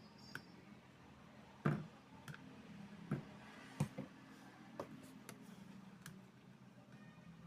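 Scattered light clicks and taps of small hard objects being handled, about eight at irregular spacing, the loudest a little under two seconds in.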